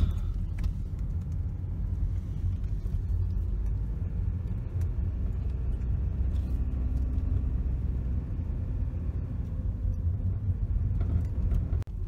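An old car driving uphill on a gravel forest road, its engine and tyres heard from inside the cabin as a steady low rumble.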